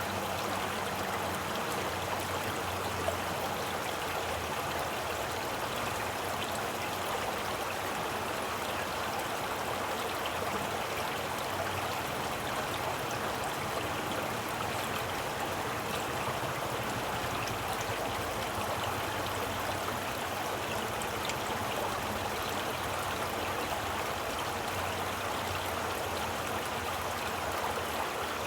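Flowing stream water running steadily, a constant rushing and burbling with faint splashes.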